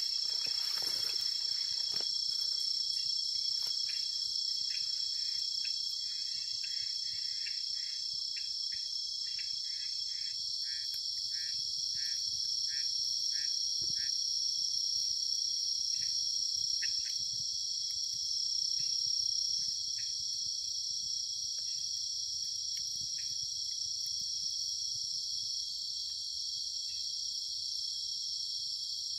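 Night-time insect chorus: crickets shrilling in a steady, high, unbroken drone, with a second, lower chirping call repeating in quick short pulses through roughly the first half.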